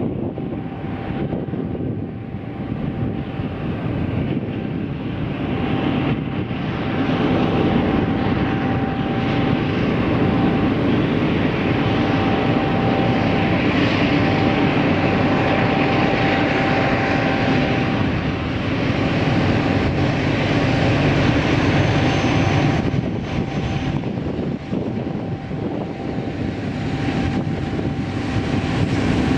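BNSF diesel locomotives hauling a double-stack container train, a steady engine drone that grows a little louder about seven seconds in as the train draws nearer.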